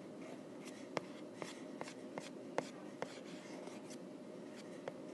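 Light taps on a tablet's glass screen: a run of six evenly spaced taps between about one and three seconds in, then one more near the end, over faint room noise.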